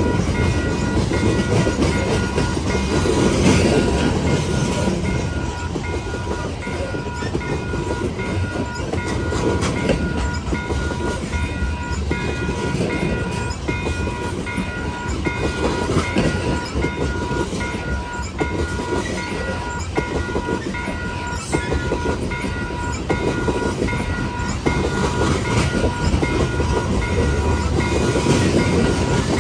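Loaded coal gondolas of a BNSF unit coal train rolling past close by: a steady rumble of wheels on rail with continual clicking, swelling and easing every few seconds. A faint steady high tone runs underneath.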